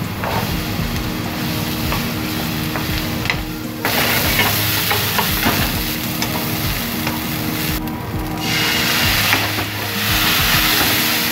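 Minced garlic sizzling in oil in a non-stick frying pan, then a louder sizzle from about four seconds in as asparagus spears fry. A wooden spatula scrapes and taps against the pan as they are stir-fried.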